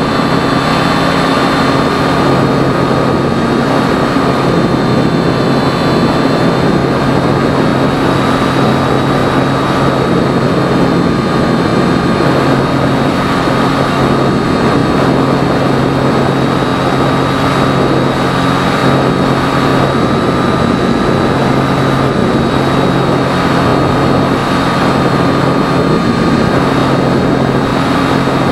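Electric motor and propeller of a Phoenix 2000 radio-controlled powered glider running steadily, a continuous high whine over a low hum, heard from a camera mounted on the plane with loud rushing air noise.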